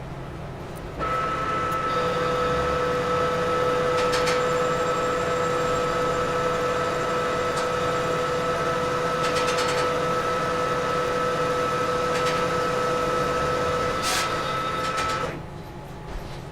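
Metal lathe taking a cut on a steel shaft: a steady whine with two held tones starts about a second in and stops shortly before the end, with a few sharp clicks along the way.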